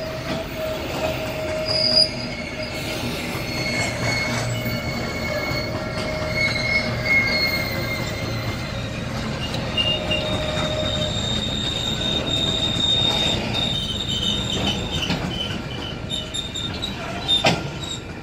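Freight wagons of a flour train rolling past, wheels rumbling over the rails with several long, steady, high-pitched squeals that come and go. A sharp bang near the end.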